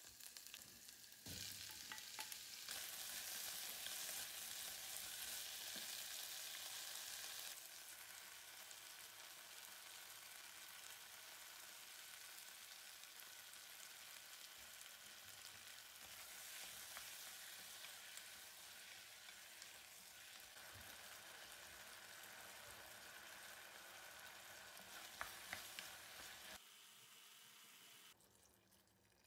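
Onion, kimchi and zucchini frying in a non-stick pot, a steady sizzle, with a wooden spoon stirring and now and then clicking against the pot. The sizzle is loudest in the first several seconds and fades out near the end.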